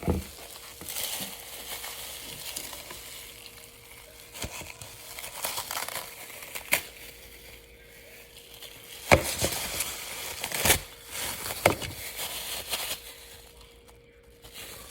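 Gloved hands squeezing and working the sticky, glue-like filling out of a cut-open squishy fidget toy. The goo and the toy's skin make irregular crackling with scattered sharp clicks and knocks, the loudest about nine and eleven seconds in.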